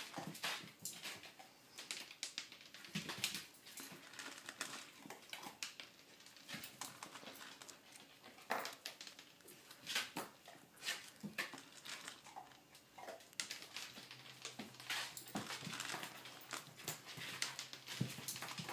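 Basset hound puppy eating his food, a run of irregular crunches and clicks.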